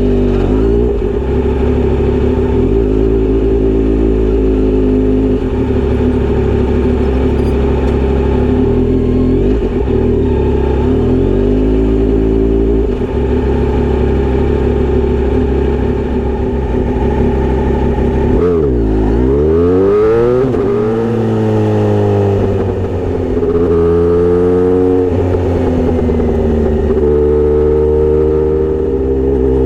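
Kawasaki motorcycle fitted with a Misty Kintaro short straight-pipe exhaust and 70 mm silencer, idling steadily for the first eighteen seconds or so. After that it is revved again and again, the pitch sweeping up and down with each blip of the throttle.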